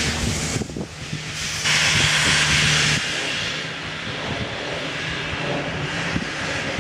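SR U class 2-6-0 steam locomotive hissing as it moves off, steam blowing from its open cylinder drain cocks. The hiss is loudest for about a second near the start, then settles to a steadier, softer hiss.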